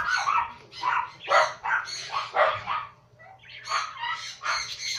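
A man coughing and hacking in quick bursts, about two or three a second, with a short lull about three seconds in. He is choking on a spoonful of dry ground cinnamon.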